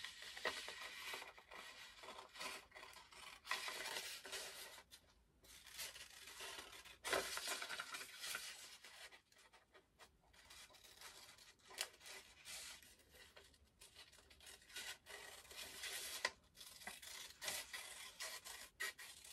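Scissors cutting through a paper sewing pattern in a run of irregular snips, with the paper sheet rustling as it is turned.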